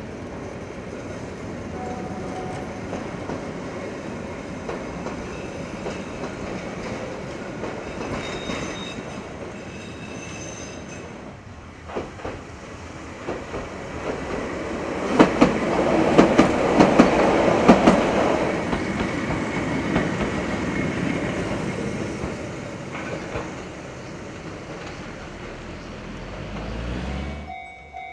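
Keihan 600 series tram running past on the line, a steady rumble that builds to its loudest about halfway through, with a quick run of wheel clacks over rail joints, then fades away.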